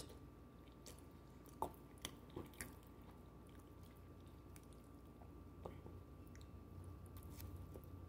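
Faint chewing, with a few short clicks and scrapes of a knife working toppings off a microwaved pizza on a plate, most of them bunched about one and a half to two and a half seconds in. A faint steady hum lies underneath.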